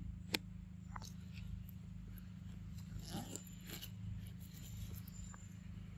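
A macaque biting and chewing a corn cob: a few short crunches and clicks, the sharpest about a third of a second in, with a small cluster around the middle.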